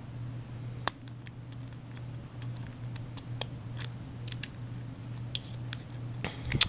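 Scattered small metallic clicks and ticks from a picked deadbolt lock and its picks being handled, the sharpest about a second in and a cluster near the end, over a low steady hum.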